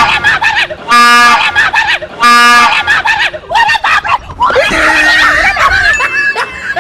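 Loud train horn blasts: the end of one at the start, then two more short blasts about a second and a half apart. After them a person screams and shrieks in fright.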